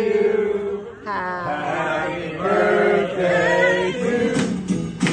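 Voices singing in long held and sliding notes, chant-like.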